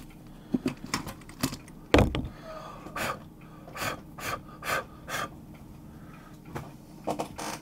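Hands handling the plastic key plate of an Amiga keyboard on a silicone work mat: a few light clicks, a heavier knock about two seconds in as it is set down, then several short rubbing sounds and more clicks near the end.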